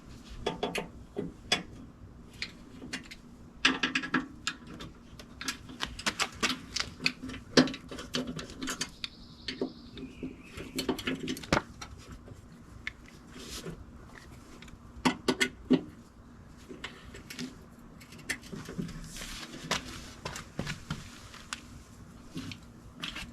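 Irregular metal clicks, taps and knocks of hand tools and door hardware being worked while an aluminum UTV door is adjusted for fit, over a faint steady low hum.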